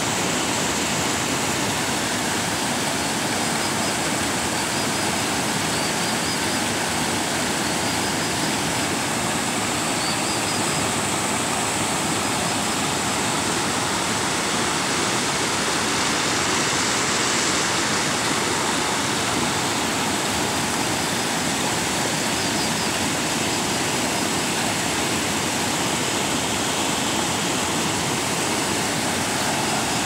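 River water pouring over a low concrete weir and churning into whitewater below it: a loud, steady rush.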